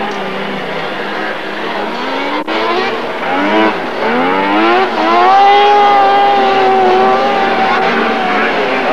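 Two-stroke racing snowmobile engines at full throttle, the pitch rising and falling as the sleds accelerate and back off. From about five seconds in, one engine holds a high, steady pitch for a few seconds.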